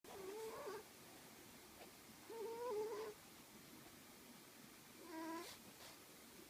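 A sleeping cat snoring: three short, pitched, wavering snores about two and a half seconds apart, the middle one the loudest.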